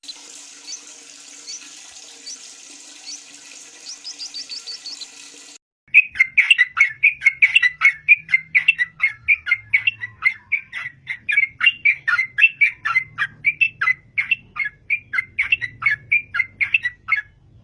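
Yellow-vented bulbul (trucukan) singing nonstop: a loud, fast run of bubbly, liquid notes, about four to five a second, starting about six seconds in and stopping just before the end. Before that come a few faint, high, thin chirps over a low steady hum.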